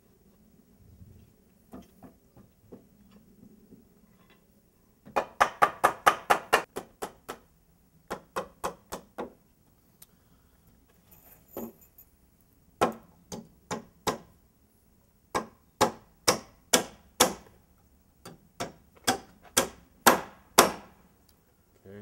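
Framing hammer driving nails into wooden cripple studs, sharp strikes in runs of several blows with short pauses between. The quickest run, about ten blows, comes about five seconds in.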